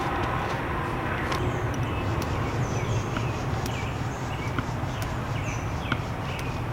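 A small bird chirping repeatedly, short high notes each with a downward hook, over a steady low rumble, with a few sharp clicks.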